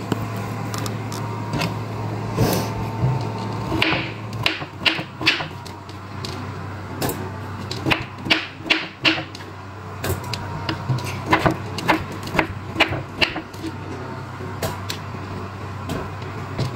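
Kitchen knife cutting carrots on a cutting board: sharp taps, a few at first and then in quick irregular runs from about four seconds in, over a steady low hum.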